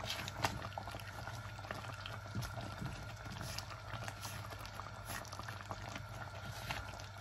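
Coconut-milk sauce simmering in a wok, bubbling steadily with many small pops.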